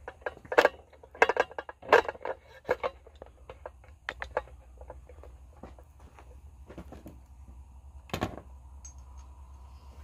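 Metal tools being handled, making a quick run of clinks and knocks in the first few seconds, then a few sparse ones and a single louder knock near the end, over a faint low hum.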